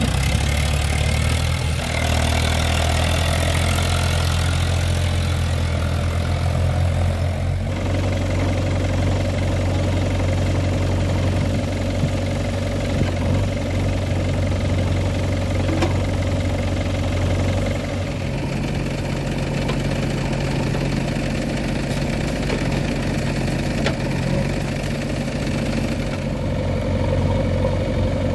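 Diesel engines of a JCB 3DX backhoe loader and a farm tractor running steadily at idle while the backhoe loads earth into a tractor trolley. The engine note changes abruptly about seven seconds in.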